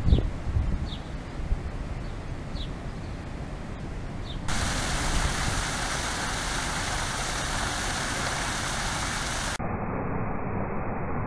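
A low rumble with a few bumps, and a small bird chirping about once a second. About four and a half seconds in it cuts to the steady splashing hiss of a wall fountain, its four spouts falling into a shallow pool.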